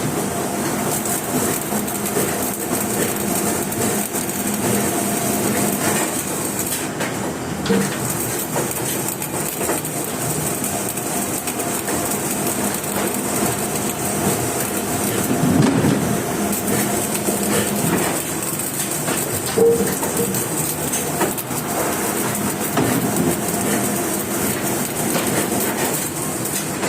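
Electric welding: a continuous noisy hiss dotted with small crackles, steady throughout.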